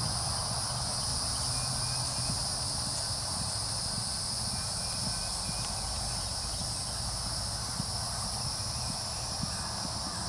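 Steady insect chorus: a constant high buzz at two pitches, with no pauses, over a low rumble.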